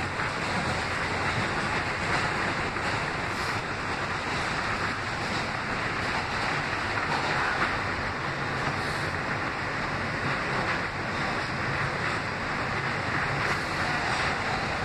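Kawasaki R160B subway car running at speed, heard from inside the car: a steady, even rush of train noise.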